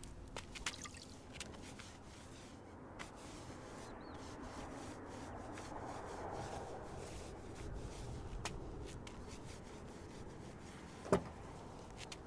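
A car wheel being wiped with a wet rag: faint rubbing and dribbling water, swelling a little midway, with a brief sharp sound near the end.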